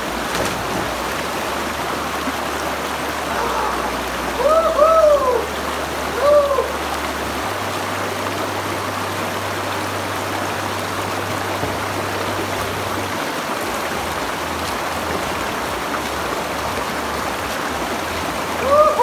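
Steady rush of creek water. A few short rising-and-falling voice calls come about four to six seconds in and again at the very end.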